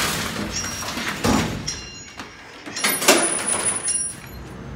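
Wooden slatted gate of a 1920s Otis freight elevator being opened: several loud rattling clanks, with a thin high squeal after the middle.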